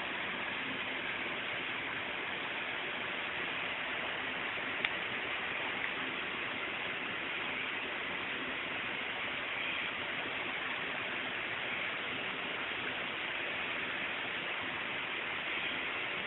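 Steady, even hiss of recording noise from a low-quality microphone or recorder, with a single short click about five seconds in.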